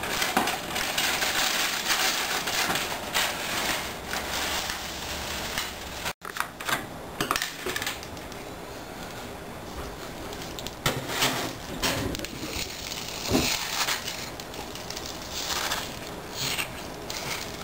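Dry crisp rice cereal poured from its box, a dense rattling hiss for about six seconds, then scattered clicks and clatters as the grains spill into a cupped hand and onto a wooden tabletop and are handled with milk.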